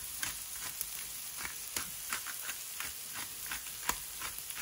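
Sliced onions and bell peppers frying in bacon fat in a skillet on low heat: a steady gentle sizzle with scattered small crackles and pops.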